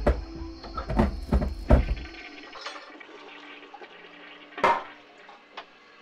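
A run of heavy thumps over a deep rumble for about two seconds. Then, more than a second before the end, a single sharp clattering knock as a carved wooden figurine drops onto the wooden floorboards.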